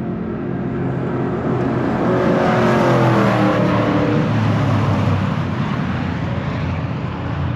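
V8 race car passing at speed, its engine note building to a peak about three seconds in and dropping in pitch as it goes by, then fading.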